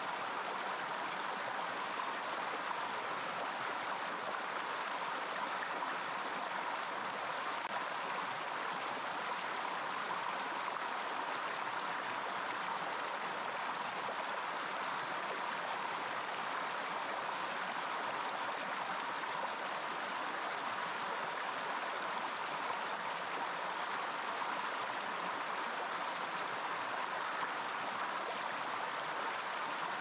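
Small rocky stream rushing and splashing over a little cascade in a steady, unbroken flow.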